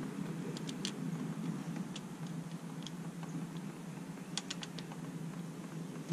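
Small metal clicks and ticks as the brake line's banjo bolt and its copper washers are worked loose by hand at the brake caliper, with a quick run of clicks about four seconds in, over a steady low hum.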